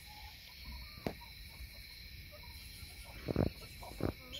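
Chickens settled on a roost, giving a few soft, short murmurs over a steady high insect chirr. There are a few knocks and bumps, about a second in and again near the end.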